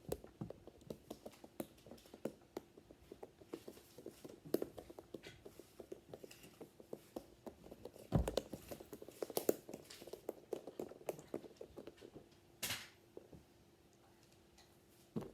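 Squishy corn fidget toy being squeezed and handled close to the microphone: quick, irregular soft clicks and squishes, with a heavier bump about eight seconds in. It goes quieter for the last couple of seconds, over a faint steady hum.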